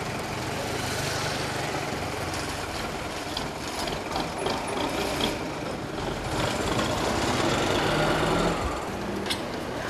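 Street traffic with a motor vehicle's engine running close by, growing louder about six seconds in and dropping back near the end.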